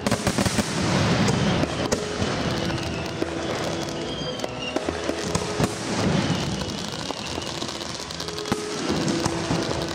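Aerial fireworks going off: scattered sharp bangs and crackling from bursting shells, with added music playing over them.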